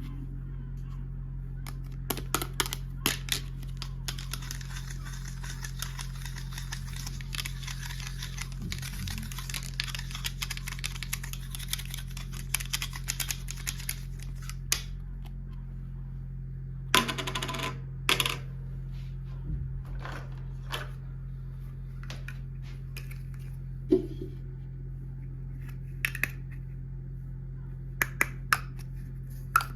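Small plastic toys and packaging being handled: scattered light clicks and taps, with a stretch of rustling and crinkling from about four seconds in to about fourteen seconds, over a steady low hum.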